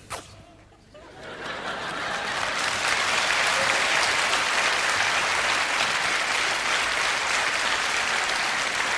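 Audience applause, building up from about a second in and then going on steadily.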